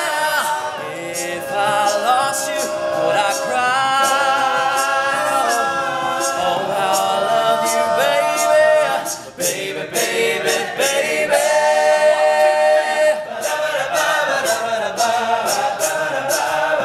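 All-male a cappella group singing in close harmony, with sharp ticks keeping a steady beat. The sound dips briefly about nine seconds in.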